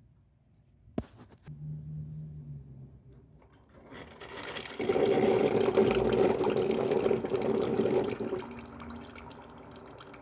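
New coffee maker brewing: a click about a second in and a short low hum, then from about four seconds a loud rush of heated water through the machine that eases off after about eight seconds.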